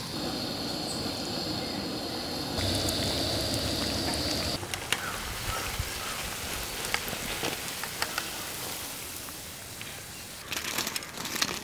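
Egg bajjis deep-frying in hot oil in a wok, sizzling and crackling, with a run of sharp clicks near the end.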